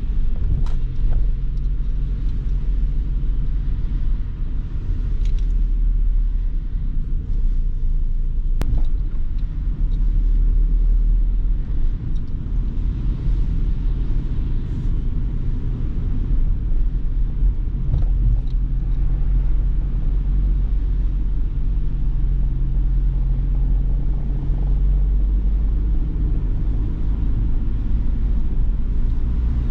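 Ford Transit Custom diesel van driving along, a steady low engine and road rumble with a few faint clicks.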